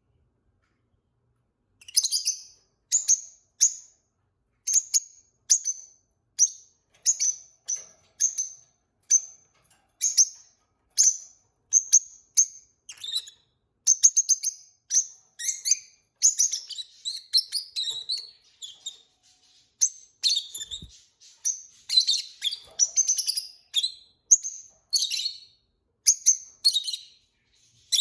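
Peach-faced lovebirds chirping: short, sharp, high-pitched chirps repeated about once or twice a second, starting about two seconds in and growing busier and more varied in the second half.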